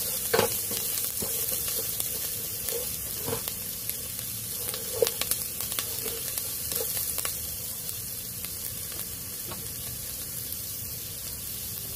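Chopped onions and garlic sizzling in a nonstick pot, sautéing until fragrant, with a wooden spatula scraping and tapping against the pan now and then.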